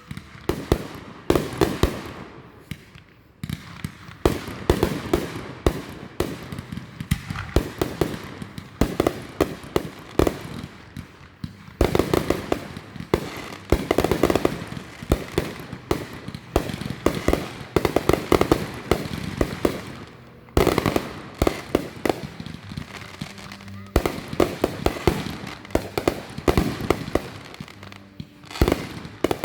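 Fireworks going off: long volleys of rapid bangs and crackling pops, broken by short lulls about 3, 12, 20 and 28 seconds in.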